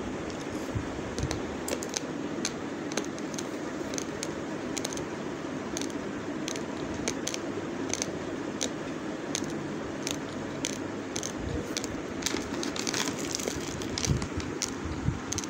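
Irregular sharp clicks and crackles of hard raw basmati rice grains, several a second, over a steady low background noise.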